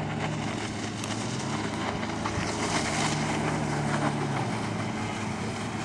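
Sea-Doo jet ski engine droning steadily as the craft speeds across the water, over a steady rushing noise. The engine hum weakens about four and a half seconds in.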